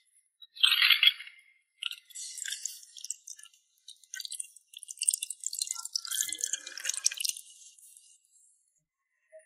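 Water poured over plastic cosmetic compact parts in a tray, splashing and dripping, with a short louder splash about a second in. It tails off into faint drips near the end.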